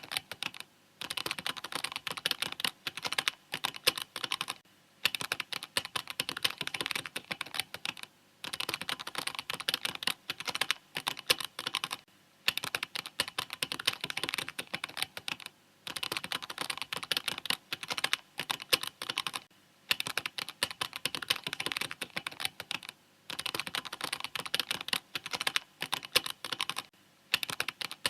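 Mechanical keyboard being typed on in quick, steady runs of key clicks, broken every few seconds by brief pauses.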